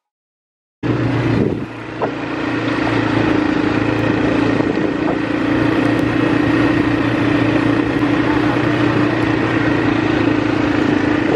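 A motor vehicle's engine running at a steady speed, cutting in abruptly about a second in.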